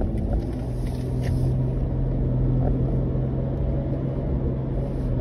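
Car interior noise while driving: a steady low hum of engine and road noise with a constant low drone.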